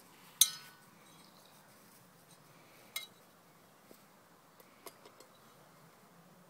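Stainless steel saucepan clanking as a whippet plays with it in its mouth: one loud ringing clank about half a second in, a second, softer clank near three seconds, then a few light taps.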